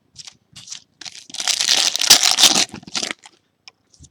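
A trading card pack's foil wrapper crinkling and tearing for about two seconds, starting a little over a second in, with soft clicks of cards being handled before and after.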